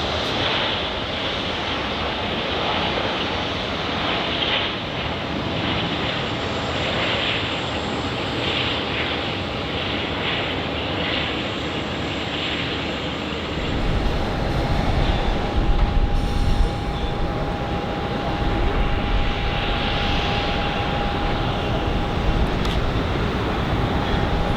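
Jet airliner engines: a Boeing 757 on landing, then a sudden change about halfway through to a louder, deeper rumble with a steady whine as a Boeing 787-9's engines run at takeoff power.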